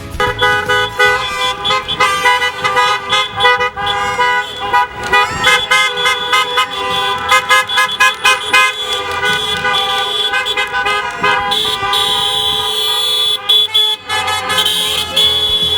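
Many car horns honking in short, repeated, overlapping toots, with longer held honks near the end.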